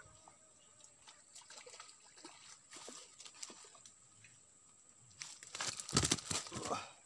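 Handling noise from a hand at the phone camera: scattered light clicks and rustles, then a louder stretch of rubbing and rustling about five to seven seconds in. A faint steady high-pitched whine sits underneath.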